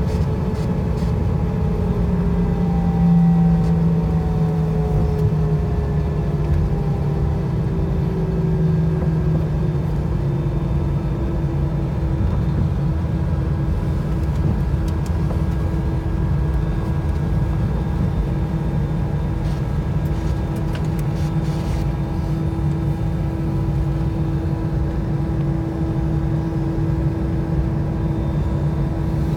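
Airbus A320 engines running at taxi, heard inside the passenger cabin: a steady rumble and hum whose engine tones fall slowly in pitch over the first dozen seconds, then hold steady.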